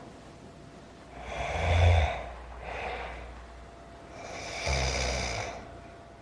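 A person breathing heavily: two long, rasping, snore-like breaths with a low rattle, and a shorter breath between them.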